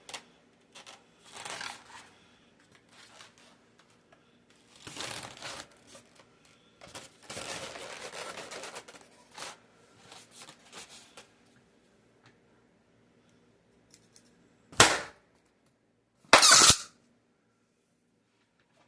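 Latex twisting balloons rubbing and crinkling as they are handled, then two loud balloon pops about a second and a half apart near the end.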